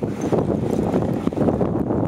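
A dog sled running over a packed snow trail behind a dog team: a steady rough scraping hiss of the runners on snow, with wind on the microphone.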